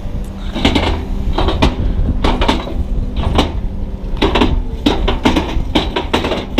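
Diesel engine of a JCB loading shovel running steadily at a low hum, with repeated irregular clunks and knocks.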